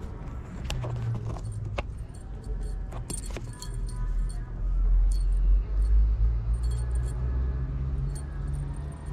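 Small metallic jingling with light clicks and taps while kittens bat at a toy dangled on a string, over a low rumble that is loudest about five to six seconds in.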